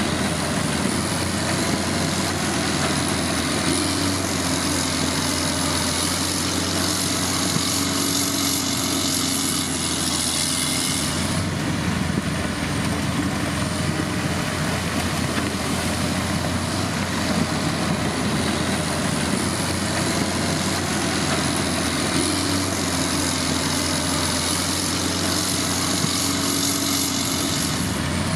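Heavy diesel road-building machine engine running steadily. A higher whine rises over it twice and then drops away.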